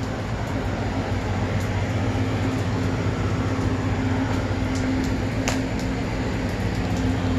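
Steady machinery drone: a constant low hum that holds several fixed pitches under a background hiss, with a couple of faint clicks about five seconds in.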